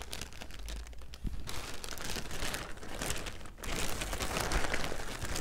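Clear plastic bag of saddle hackle feathers crinkling as hands rummage through it, more busily after about a second and a half and loudest near the end.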